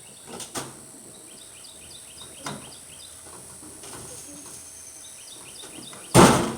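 Bird chirping in quick, evenly repeated short notes over a steady high-pitched buzz, with a few soft knocks. About six seconds in comes a short, loud thump, the loudest sound.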